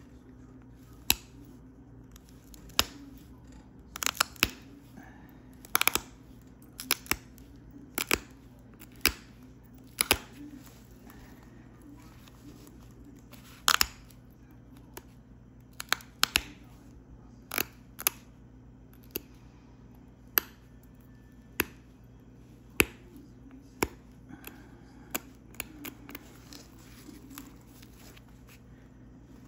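Flakes snapping off heat-treated Flint River chert under an antler pressure flaker: sharp single clicks about once a second, some in quick pairs, with a pause of a few seconds midway.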